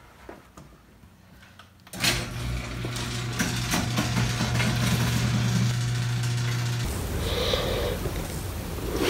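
Electric garage door opener starting up about two seconds in: a steady motor hum with a rattling drive that cuts off a few seconds later, leaving a rougher rushing noise.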